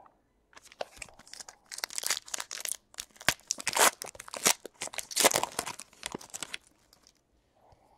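Trading card pack wrapper being torn open and crinkled by hand, a run of crackly tearing and crumpling that stops about two-thirds of the way through.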